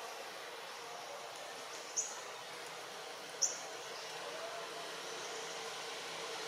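Outdoor ambience with a bird giving two short, high chirps, about two seconds and three and a half seconds in, over a steady faint hum.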